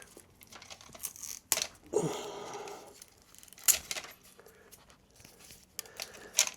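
Old, loosened tape being torn and peeled off a motorcycle's wiring, with crinkling and a few sharp clicks.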